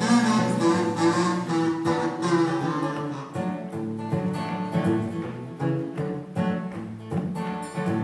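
Solo acoustic guitar playing a folk song's instrumental introduction, chords ringing between repeated attacks.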